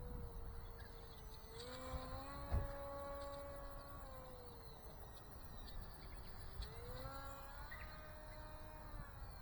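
An RCX NK1103 brushless motor spinning a small 3-inch propeller on an electric RC model plane, whining in flight. Its pitch rises about two seconds in, drops midway, rises again near seven seconds and falls near the end, over a low rumble. One sharp thump comes about two and a half seconds in.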